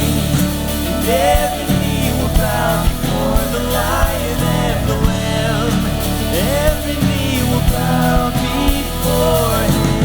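Band playing a worship song: a sung melody over sustained bass notes, with a drum hit every second or two.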